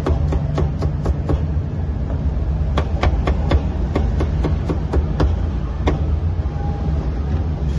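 Cleaver chopping vegetable stalks on a wooden chopping block: quick, even knocks about four a second, in two runs with a pause of over a second between them, and one last cut after. A steady low rumble runs underneath.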